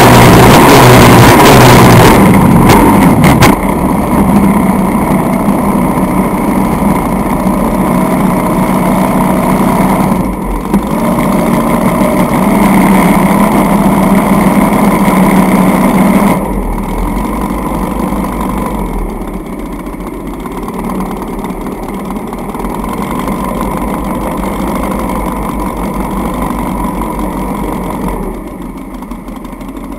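Racing skiff's engine running hard over the water with wind and water rush, easing off in steps: a clear drop about three seconds in, another past the middle and a last one near the end as the boat slows.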